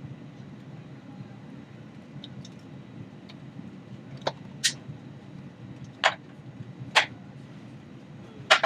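Steady low hum inside an Airbus A321 cabin at the gate, with a handful of sharp clicks in the second half, the last one doubled.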